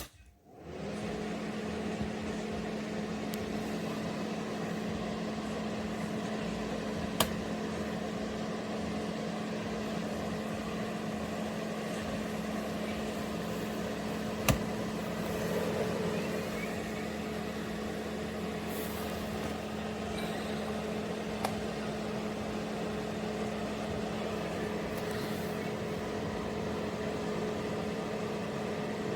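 Pro Breeze 2000W mini ceramic fan heater switched on and running: its fan spins up over about a second into a steady whoosh of air with a steady motor hum. A sharp click is heard about seven seconds in and another about halfway through.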